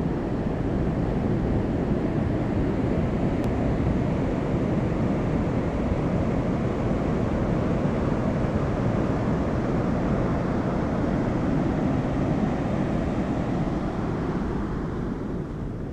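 Steady rushing of water released through the open floodgates of the Inglis Dam spillway, with a deep rumble, easing slightly near the end.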